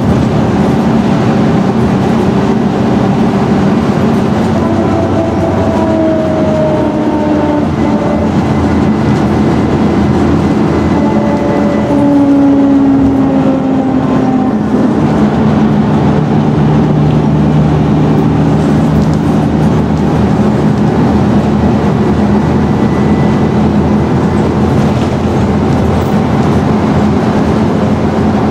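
Scania N113DRB double-decker bus on the move, its engine and driveline whine rising and falling slowly in pitch over steady road noise.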